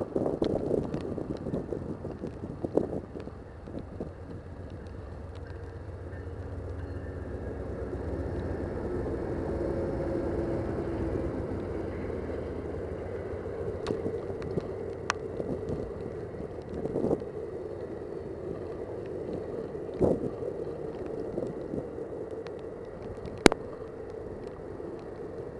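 Amtrak passenger train rolling past, a steady rumble of the cars and wheels with a handful of sharp clicks in the second half. Wind gusts hit the microphone, loudest right at the start.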